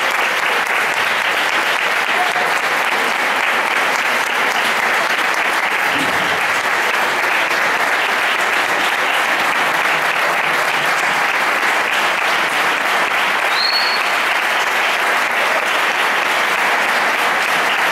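Audience applauding, steady sustained clapping at the end of a string orchestra's performance.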